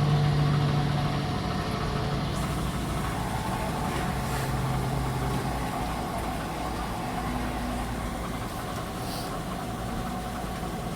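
Electrolux W5300H large-capacity washing machine running in its spin cycle: a steady low mechanical hum and rumble. The strongest hum fades out about halfway through and the sound gradually gets quieter.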